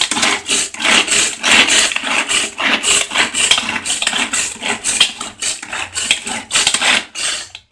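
Hand-pull-cord mini food chopper worked in quick repeated pulls, about two to three a second: each pull whirs the cord and spins the blades in the plastic bowl, chopping onion, green chillies and curry leaves. It stops just before the end.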